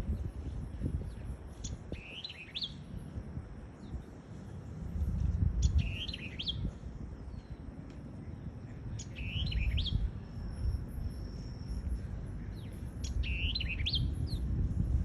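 A songbird singing the same short phrase four times, a few seconds apart: a high downslurred note followed by quick rising and falling whistled notes. A low rumble runs underneath.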